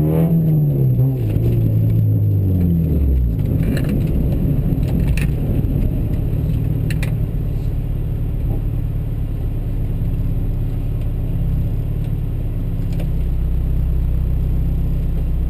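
Vehicle engine heard close up, its pitch falling and rising for the first three seconds or so, then settling into a steady idle with a low rumble. A few faint clicks are heard over it.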